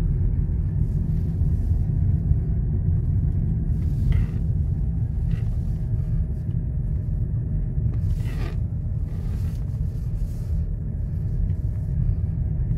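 Steady low rumble of a car's road and engine noise heard inside the cabin while driving at an even speed.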